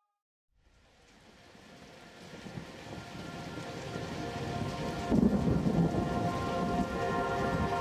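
Rain and thunder ambience fading in from silence, growing steadily louder, with a low rumble of thunder about five seconds in. Soft sustained music tones begin to rise under the rain near the end.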